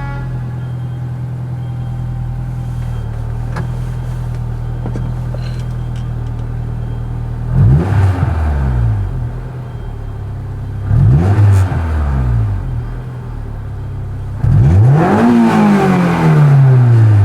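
Honda S2000 four-cylinder engine breathing through a Revel Touring-S straight-through stainless steel exhaust: a steady idle with a deep tone, then three revs, two short blips and a longer rev held high before it falls away near the end.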